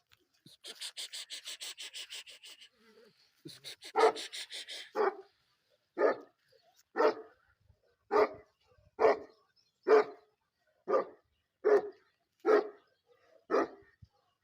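Pakistani bully kutta barking about once a second, with around ten deep barks in a steady rhythm. Before the barking, in the first few seconds, there is a fast rattle of high clicks.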